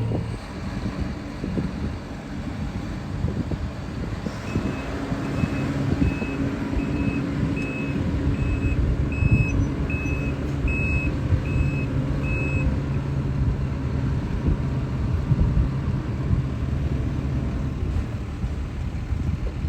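Self-propelled potato harvester running steadily under load. About four seconds in, a machine warning beeper sounds about eleven evenly spaced high beeps, just over one a second, and then stops.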